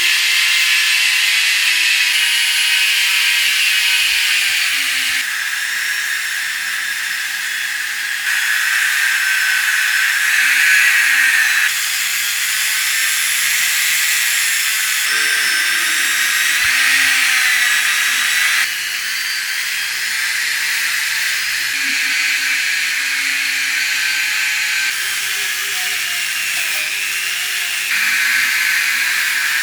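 Steady high-pitched hiss of a workshop tool at work, with a faint wavering motor tone beneath it, in short stretches whose level and pitch change abruptly every few seconds.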